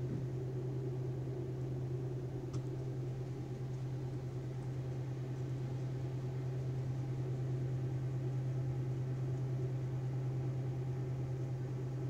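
A steady low hum, with one faint click about two and a half seconds in.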